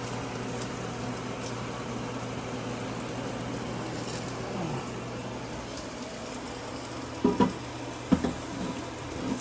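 Steady sizzling hiss from a hot, still-steaming stovetop grill pan over a low steady hum. Near the end, a few short knocks as the pan is set down in a stainless-steel sink.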